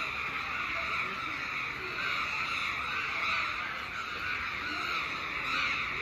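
A large flock of crows cawing all at once: a dense, unbroken chorus of many harsh overlapping calls.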